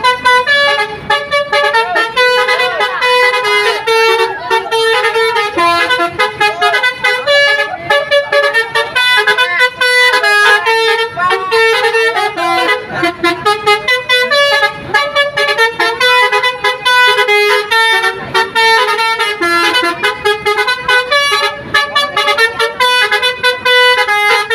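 Basuri V3 telolet bus horn playing a fast melody: a continuous run of loud, pitched horn notes that change several times a second.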